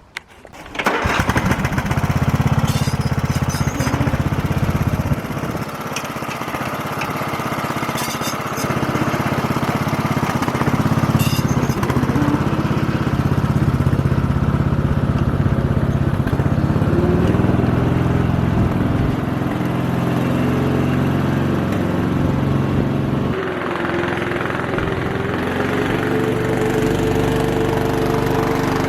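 Small garden tractor engine running while it tows a wheeled portable sawmill. The engine sound comes in abruptly about a second in, and its pitch shifts a few times as the engine speed changes.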